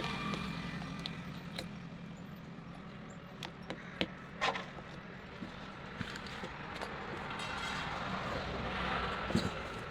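Scattered sharp knocks and clicks, about half a dozen, from hand work on a punctured tractor tyre, over a steady background of vehicle noise that swells briefly near the end.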